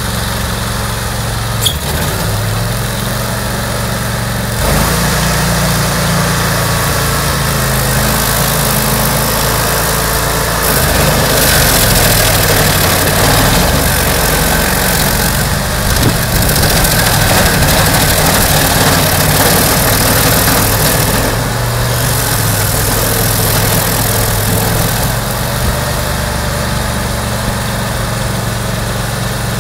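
Petrol stump grinder's engine running hard while its cutting wheel grinds into a goat willow stump, a steady engine tone under rough chipping noise. The grinding gets louder about five seconds in and is loudest for a stretch in the middle.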